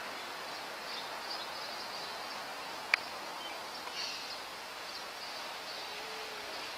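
Steady outdoor background noise with a faint high buzz, and a single sharp click about three seconds in.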